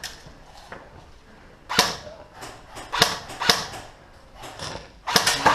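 Airsoft guns firing: a few single shots, then a quick string of shots near the end.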